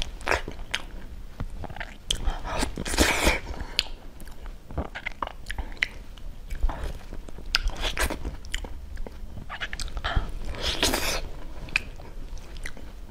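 Close-miked mouth sounds of eating soft durian flesh: wet lip smacks and chewing clicks, with two longer wet bouts about three seconds in and near eleven seconds.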